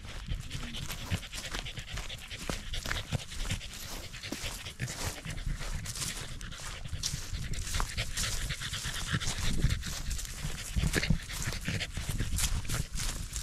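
Corgi panting hard while trotting along, with footsteps crunching and swishing through dry grass close by.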